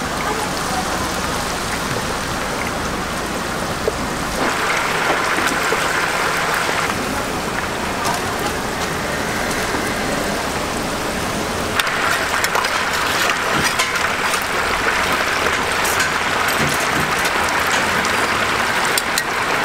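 Battered chicken pieces deep-frying in a large pot of hot oil: a steady sizzle of bubbling oil, with denser, sharper crackling from about twelve seconds in.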